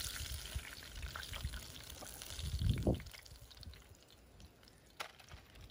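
Hot frying oil in a cast iron skillet bubbling and dripping as a fried chicken leg is lifted out with tongs. The noise dies down after about three seconds, and there is a single click about five seconds in.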